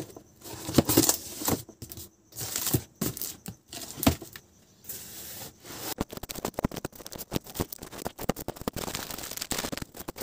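Cardboard packaging being handled: carton flaps scraping and rustling, with boxes knocking as they are set down. From about six seconds in comes a dense run of rapid crackling and clicking as the boxes are shuffled and stacked.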